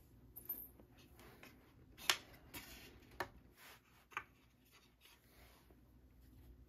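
Light clicks and knocks of pine crate boards being handled and fitted together by hand, with faint rubbing of wood; the sharpest knock comes about two seconds in, with smaller ones near three and four seconds.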